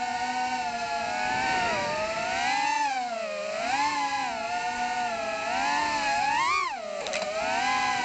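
Brushless motors and propellers of a 3.5-inch FPV quadcopter with Emax 2004 3000KV motors whining as it flies low. The pitch swoops up and down with the throttle, climbs steeply and then drops hard about seven seconds in.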